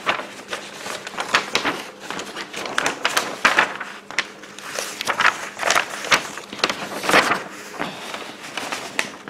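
A large folded paper plan sheet being unfolded and handled, rustling and crinkling irregularly.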